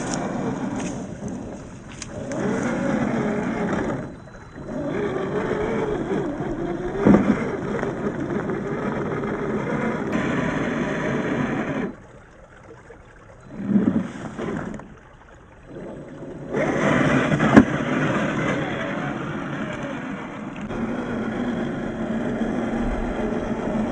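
Electric drive of a 1/10-scale RC crawler (MST CFX chassis, RC4WD 20T motor) whining as it drives, its pitch rising and falling with the throttle. It cuts out briefly a few times, twice in quick succession about halfway through, and there are a couple of sharp knocks.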